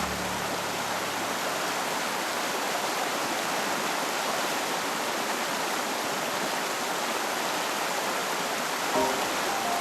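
Clear mountain stream rushing steadily over rocks. Faint music notes come in near the end.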